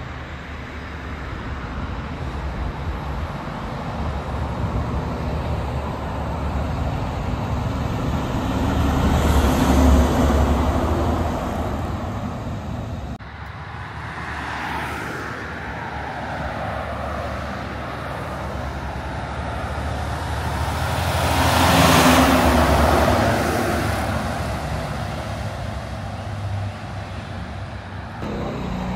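Heavy trucks passing on a highway, one after another. Engine drone and tyre noise swell to a peak about a third of the way in and again about three quarters through, then fade, with an abrupt break between the two passes.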